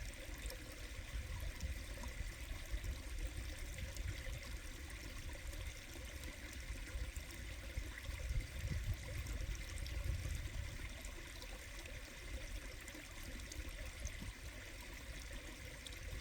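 Mountain stream flowing steadily, a continuous rush and trickle of water with a low rumble underneath.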